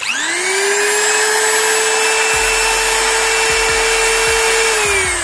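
Electric wood trimmer (small router) motor, bare and with no bit fitted, switched on and spinning up within half a second to a steady high whine. It is switched off near the end and starts to wind down with a falling pitch. It runs normally after being reassembled with its carbon brushes refitted.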